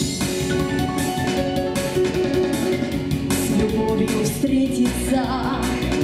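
Instrumental introduction of a pop song's backing track, with a steady drum beat under sustained chords.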